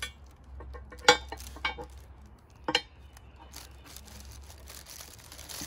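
A cast iron handle clinking against a cast iron griddle lid as it is worked into the lid's slot: a few sharp metal clinks, the loudest about a second in. Plastic wrap crinkles under the lid later on.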